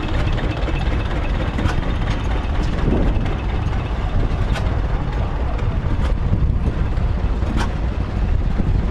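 Steady low rumble of a vehicle engine running, heard from on board while riding along a dirt lane, with a few light clicks.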